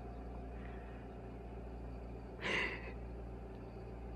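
Steady low electrical hum of room tone, with one short soft hiss-like sound about two and a half seconds in.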